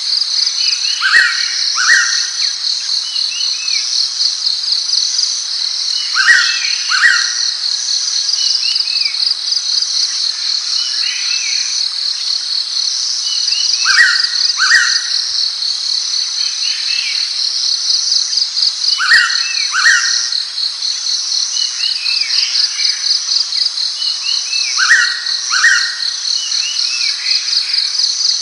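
Blue-winged pitta giving its double whistle, two clear notes in quick succession, repeated five times about every six seconds. A steady, fast-pulsing insect trill runs underneath.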